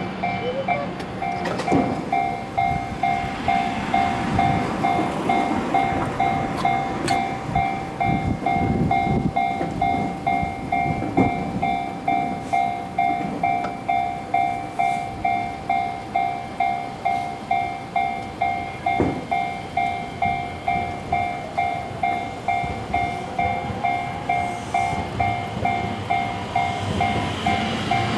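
Japanese railroad crossing's electronic warning bell dinging in an even, steady rhythm, over the rumble and rail clatter of a passing train.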